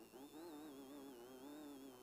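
Off-road race car engine, heard faintly, its pitch wavering quickly up and down as the revs change.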